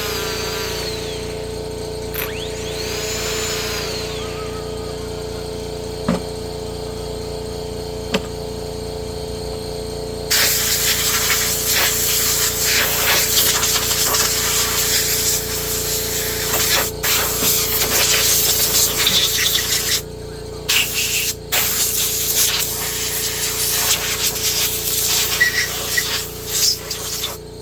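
A loud, steady hiss of air being blown through a disassembled Makita DUC254 battery chainsaw to clean out dirt. It starts suddenly about ten seconds in and cuts out briefly twice, over a steady low hum.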